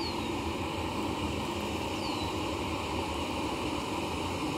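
A steady rushing background noise with a low rumble, with two faint falling whistles about two seconds apart.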